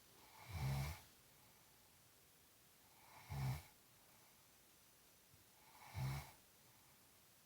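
Slow, regular snoring: three short low buzzing snores, each about half a second long, roughly two and a half to three seconds apart, with quiet between them.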